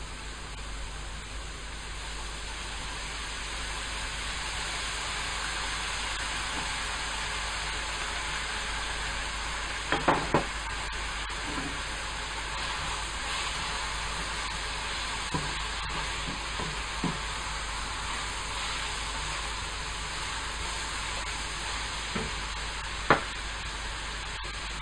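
Diced vegetables sizzling steadily in a hot frying pan as a wooden spatula stirs them, with a few sharp knocks of the spatula against the pan about ten seconds in, a few more a little later, and one louder knock near the end.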